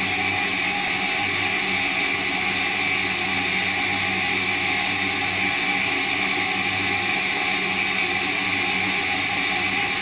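Semitool ST-240 spin rinse dryer in its dry cycle, the rotor spinning steadily at about 2,000 RPM: an even whir and hiss with a low hum, smooth and without vibration.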